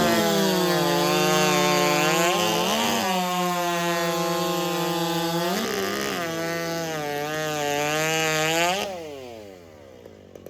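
Two-stroke racing chainsaw in the 90cc-and-under class running flat out through a log. Its pitch dips briefly about three times as it loads up in the cut. Near the end the throttle is let off and the engine winds down quickly.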